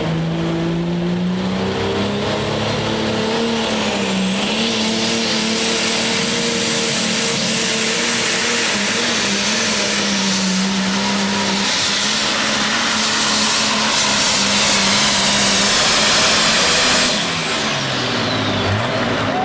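Light Pro pulling tractor's engine at full throttle pulling the sled. It revs up at the launch and holds a loud, high run with a high whistle over it, then lets off about 17 seconds in and winds down.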